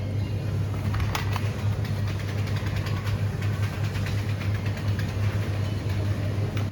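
Motor vehicle engine running steadily with a low hum, a few faint clicks about a second in, then cut off abruptly at the end.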